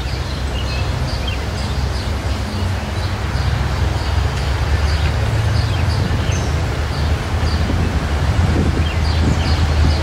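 A steady low engine drone that slowly grows louder, with small birds chirping over it again and again.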